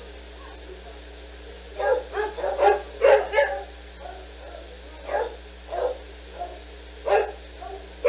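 Several senior dogs barking and woofing in short, excited calls: a quick cluster about two seconds in, then single barks every second or so.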